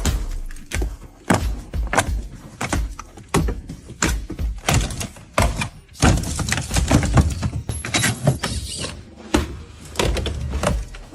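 A run of irregular knocks and clunks, several a second, like hard objects being handled and struck, with a brief hiss about eight seconds in.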